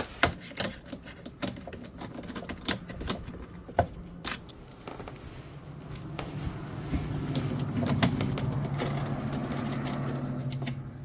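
Metal tools and parts clicking and clattering during washer reassembly, then from about halfway a steady motor hum that gets louder and keeps running.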